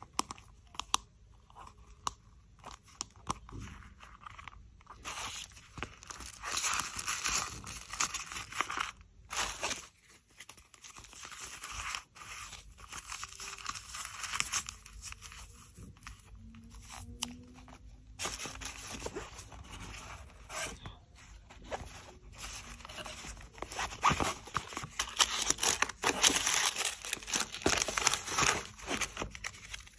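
Paper and thin plastic packaging crinkling and rustling as it is handled and unwrapped, with scattered small clicks and taps. It comes in several stretches with short quieter gaps, busiest in the second half.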